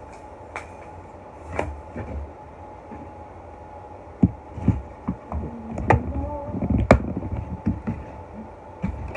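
Scattered close-up clicks, taps and soft thumps of things being handled, sparse at first and busier in the second half, over a faint steady hum.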